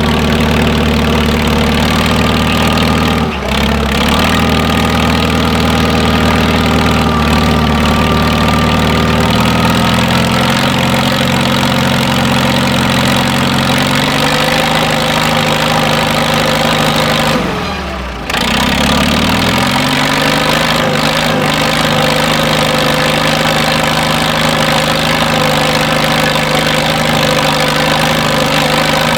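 Antique tractor engine running steadily. About two-thirds of the way through, its pitch briefly sags as the engine slows, then climbs back up to speed.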